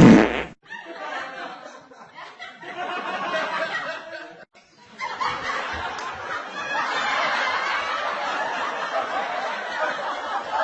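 Laughter sound effect: many people laughing together, like a sitcom laugh track. It opens with a short loud hit, breaks off briefly about four and a half seconds in, then carries on.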